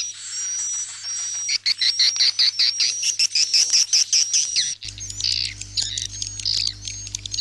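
Swiftlet calls from a 'suara inap' roosting-call track, the sound played in swiftlet houses to make swiftlets stay overnight. Repeated high chirps give way about a second and a half in to a fast run of chirps. About five seconds in, a steady low hum enters under scratchier twittering.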